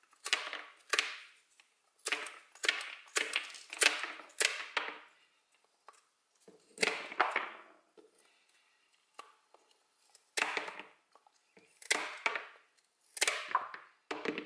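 Bypass pruning shears snipping through a green stem: about a dozen crisp cuts, some in quick pairs, with pauses between.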